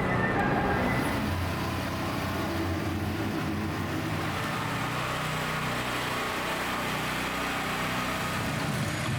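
Steady low hum of a running engine, with no speech over it.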